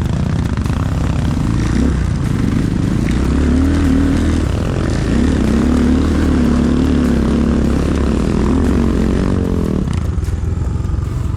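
Single-cylinder enduro motorcycle engine running under load on a climb, its pitch wavering up and down with the throttle, easing off about ten seconds in.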